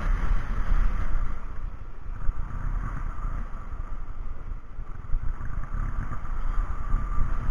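Wind buffeting and road noise from a moving vehicle, picked up by an action camera's own microphone as a steady rumble with no clear engine note.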